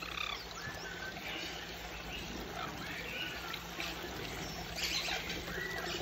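Water trickling from a small rock fountain into its stone basin, with many short high chirps scattered through it.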